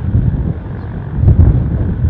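Gusty wind buffeting the microphone in uneven low rumbles, with the faint sound of a Yak propeller aircraft's engine underneath as it comes in on its landing approach.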